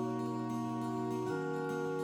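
Background music: soft sustained chords, changing to a new chord about a second and a half in.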